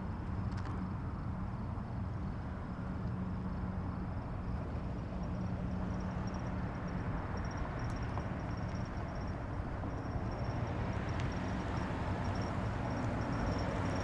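Highway traffic noise: a steady rumble of road and tyre noise that swells over the last few seconds.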